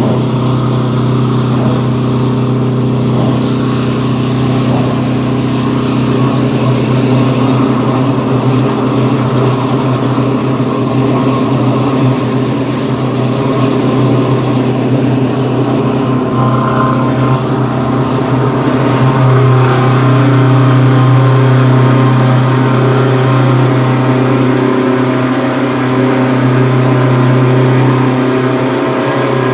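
Detroit Diesel 8V71 two-stroke V8 diesel in an MCI coach, running straight piped with no muffler under highway load, heard from the driver's seat. The steady exhaust drone swells a little about two-thirds of the way through.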